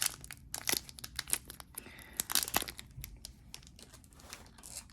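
Foil wrapper of a Pokémon trading-card booster pack being crinkled and torn open by hand: a run of sharp crackles, dense at first and thinning out toward the end.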